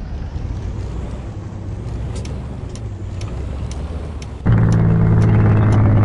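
Heavy truck rolling, with a low rumble and faint clicking about twice a second. About four and a half seconds in, the Detroit Diesel DD15 diesel engine comes in suddenly, loud and steady with a deep pitched drone.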